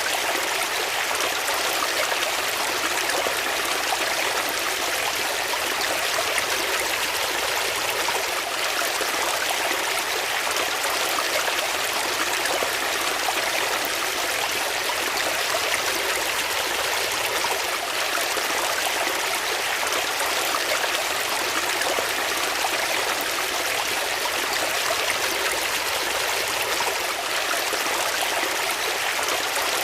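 Water flowing in a steady, unbroken rush, like a stream running over rocks.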